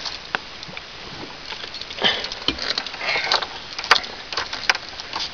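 Rustling and handling noise with a few sharp clicks, the loudest about four seconds in and again near the end, from movement in a car's cabin with the door open.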